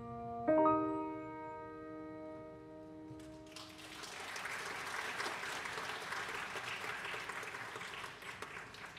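A grand piano's final chord is struck about half a second in and left to ring and fade. Audience applause starts about three and a half seconds in and continues.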